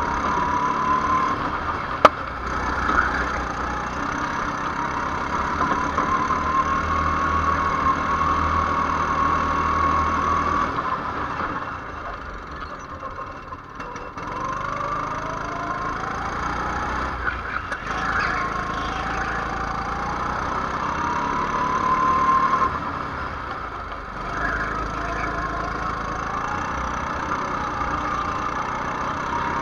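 Go-kart engine heard onboard at speed, its pitch climbing steadily under throttle and falling away when the throttle is lifted for corners, three times over. A single sharp knock about two seconds in.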